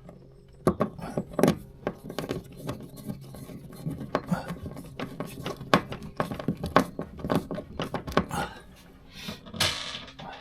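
Hand screwdriver and small screws working a deck socket into place: irregular clicks, taps and scrapes of metal on plastic, with a short hissing scrape near the end, over a faint steady low hum.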